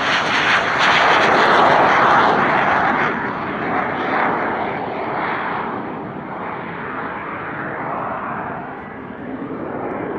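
Cessna A-37B Dragonfly's twin General Electric J85 turbojets as the jet flies past and climbs away. The jet noise is loudest about two seconds in, then fades gradually and grows duller as the aircraft draws away.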